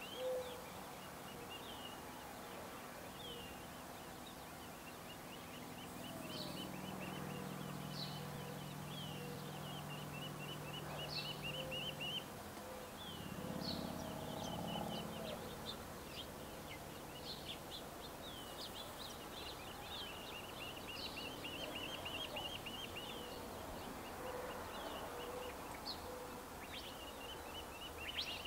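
Gambel's quail chicks peeping: thin, high chirps and short rapid trills, repeating every second or so, with faint low calls underneath. A low hum runs through the middle.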